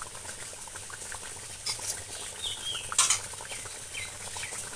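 Fish curry simmering in a kadai, with soft bubbling and small pops, while small birds chirp a few short falling notes in the background.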